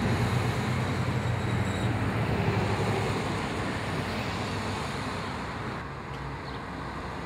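City street traffic: a steady rush of car engines and tyres, louder in the first few seconds as a vehicle passes close.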